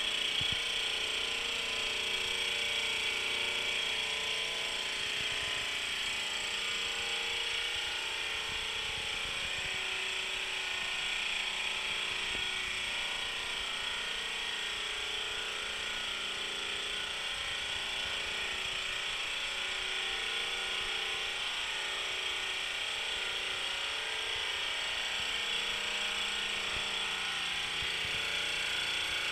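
SMTmax SL-310 oil-free dental air compressor running steadily: an even motor whir with a strong hiss.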